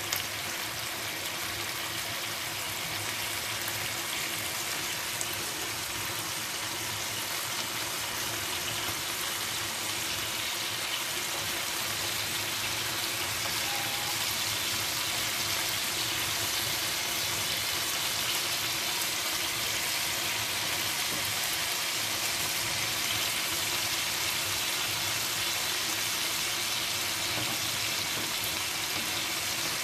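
Chicken pieces sizzling steadily as they fry in a pan, coated in sauce.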